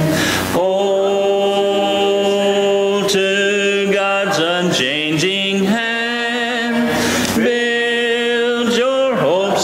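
A church congregation singing a hymn a cappella, with voices only: long held notes that move in steps from one note to the next, broken by short breaths between phrases.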